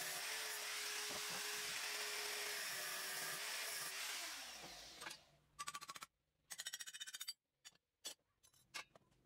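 Angle grinder running with a steady hiss and a held whine, then switched off about four seconds in, its pitch sliding down as it winds to a stop. Two short bursts of fast, even clicking follow.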